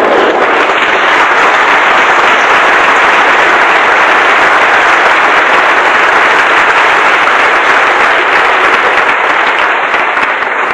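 Audience applauding loudly, dying away near the end.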